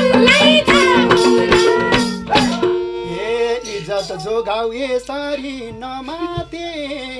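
A dohori folk ensemble of madal drums, harmonium and sarangi plays behind singing voices, then stops abruptly about two and a half seconds in. A single man's voice carries on alone, unaccompanied, in short phrases that rise and fall in pitch.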